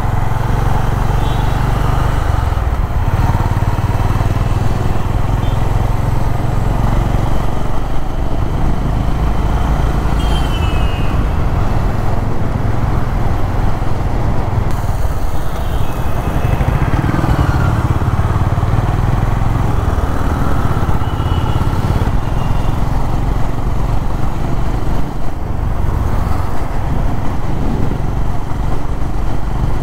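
Honda CB350's single-cylinder engine running steadily as the motorcycle is ridden, with other road traffic around it.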